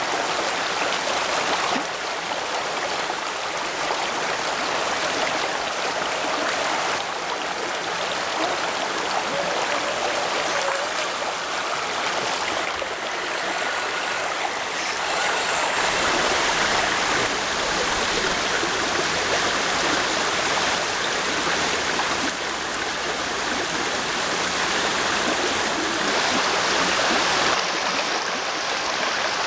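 Shallow creek rapids rushing close by: a steady, dense wash of running water whose tone shifts abruptly several times.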